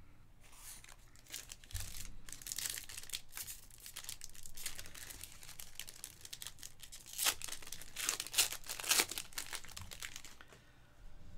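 A 2023-24 Panini Phoenix basketball card pack being torn open, its wrapper crinkling and crackling, with the sharpest crackles about seven to nine seconds in.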